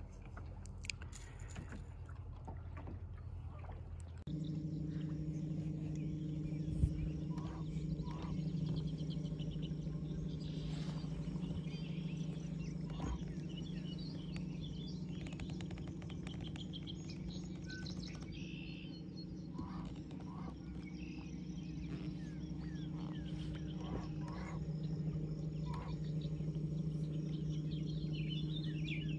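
Steady low hum of a boat motor moving the boat along, starting about four seconds in, with birds chirping over it.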